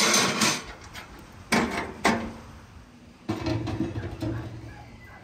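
Metal clanks and scraping on the steel top of a homemade wood stove as its lids and rings are handled with tongs and a large aluminium pot is set down on it: sharp knocks at the start and around one and a half and two seconds in, the last one ringing briefly, then a low scraping rumble.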